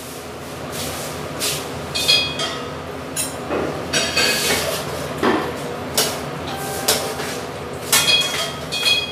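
Metal spatula knocking and scraping against a frying pan on the stove as food is stirred, with scattered clinks, several ringing briefly.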